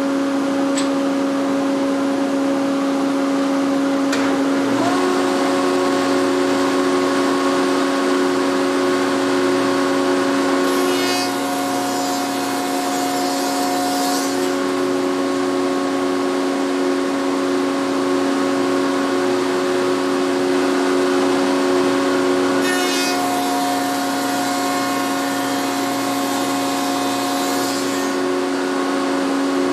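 A wood shaper's spindle runs with a steady hum, and about five seconds in a power feeder motor starts up and joins it. The feeder then pushes a board past the cutter twice, and each pass adds a few seconds of loud hissing cutting noise.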